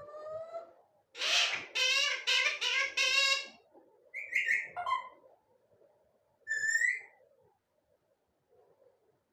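Talking parrot chattering in a high-pitched, speech-like run of syllables, then giving two short whistled calls, the last one rising.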